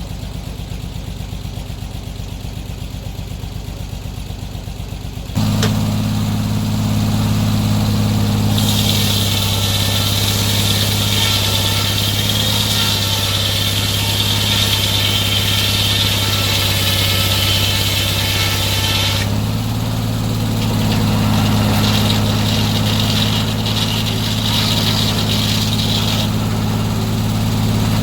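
Sawmill engine idling, then throttling up about five seconds in; a few seconds later the blade starts cutting through a log, a loud high-pitched hiss over the engine for about ten seconds, which drops away and then returns more weakly for a few seconds near the end.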